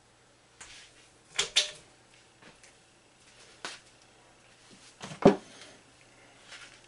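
Scattered clicks and knocks of objects being handled and set down on a cluttered workbench, a close pair about one and a half seconds in and the loudest a sharp knock about five seconds in, over a faint steady hum.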